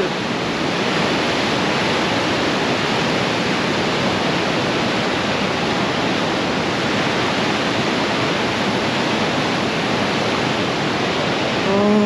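Niagara River rapids rushing: a steady, unbroken roar of fast white water, with spray thrown up by the strong current.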